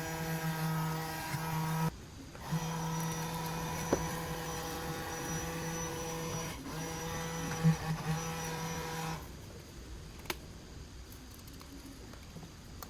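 Small electric motor with a fan, like the one in a homemade soda-can vacuum, running with a steady hum. It stops for a moment about two seconds in, starts again and runs until it stops about nine seconds in, with a few sharp clicks along the way.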